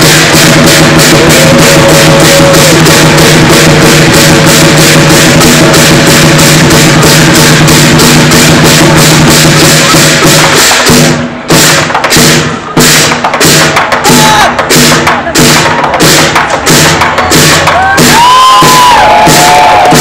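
Chinese lion dance drum, cymbals and gong played loud in a fast, steady beat. About eleven seconds in, the playing breaks into separate strokes with short gaps, and near the end the crowd shouts and cheers over it.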